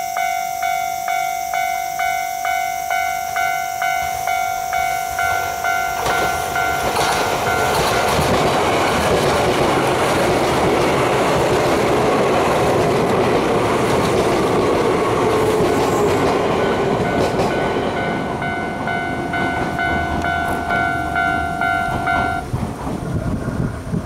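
Railway level-crossing alarm ringing in a repeated two-tone ding, about two a second. From about six seconds in, an Izukyu 2100 series 'Kurofune' electric train passes with a heavy rumble and wheels clacking over rail joints. The alarm stops near the end as the train's noise dies away.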